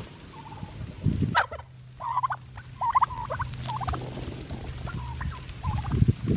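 Bird calls: a string of short, rapid warbling calls in the middle, over a low steady hum.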